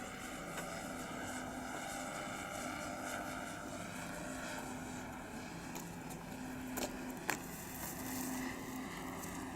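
A 1400 mm radio-controlled P-51 Mustang model airplane flying with a steady engine drone, which its sound-effects version is built to make. Two sharp clicks come about half a second apart near the end.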